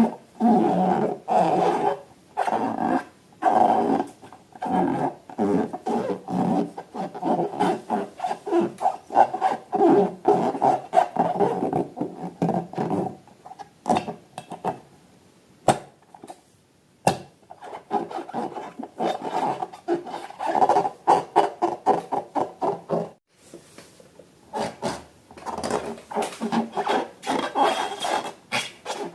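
Irregular rubbing, squeaking and squishing as hands work rubber balloons and slime, in quick bursts with a short lull about halfway through.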